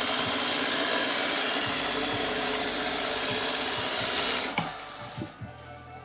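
Roomba robot vacuum running, its motor whirring with a steady hiss, then cutting off about four and a half seconds in; a few faint knocks follow.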